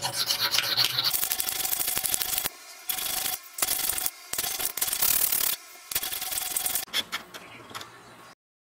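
Hand file rasping along the edge of a steel bar held in a vise, in five or six long push strokes with short gaps, then lighter scrapes; the sound cuts off abruptly near the end.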